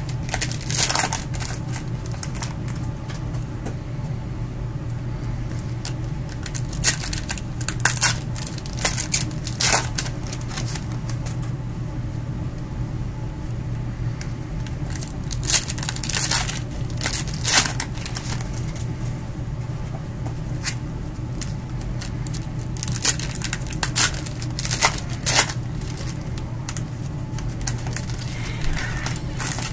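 Foil trading-card pack wrappers being torn open and crinkled by hand, in irregular clusters of short crackly rips, over a steady low hum.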